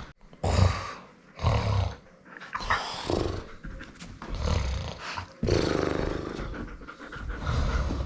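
Loud human snoring: a run of rough, rumbling snores and snorts about a second apart, with one longer snore past the middle.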